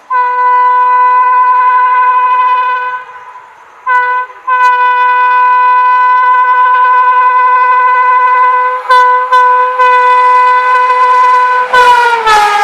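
WAP7 electric locomotive's horn blowing as an express train runs through at high speed: a blast of about three seconds, a short toot, then a long blast of about seven seconds with a few brief breaks. Near the end the horn's pitch drops as the locomotive passes, and the rush and clatter of the train begins.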